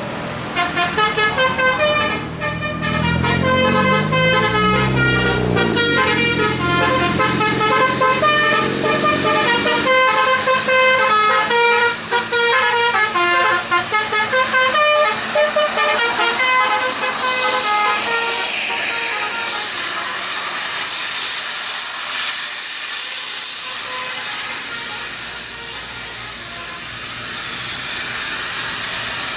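Basuri telolet musical horn on a tour bus playing a tune of short held notes for about seventeen seconds, with a low sliding tone a few seconds in, then a long hiss.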